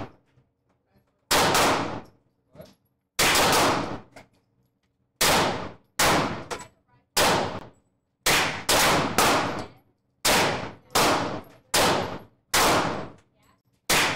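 Semi-automatic firearm shot after shot at irregular intervals, about a dozen reports, each sharp with a short echoing tail: a ten-round magazine being fired off.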